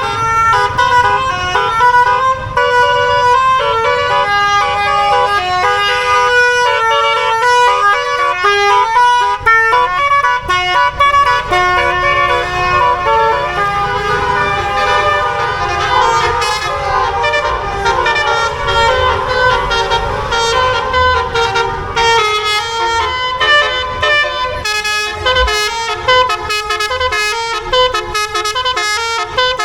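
Bus telolet horn, a multi-tone musical air horn, playing melodies note by note, with pitches stepping a few times a second. A low rumble runs underneath.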